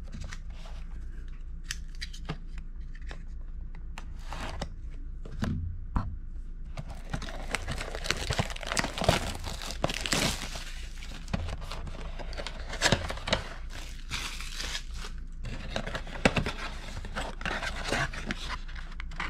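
A cardboard trading-card blaster box being torn open by hand. Scattered taps and clicks of handling at first, then from about seven seconds in a continuous run of tearing and crinkling.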